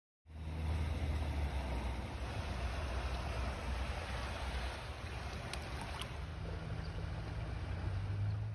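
Steady outdoor background noise, a low rumble under a hiss, that cuts in and out abruptly, with two faint clicks about six seconds in.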